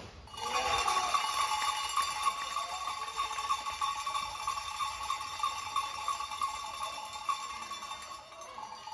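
Sports hall time-keeping buzzer sounding one long steady electronic tone for about eight seconds, starting just after a shot at goal. It is the signal that playing time has run out.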